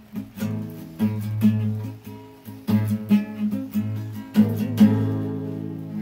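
Acoustic guitar strummed in loose, uneven chords. The last chord, about five seconds in, is left to ring and fade.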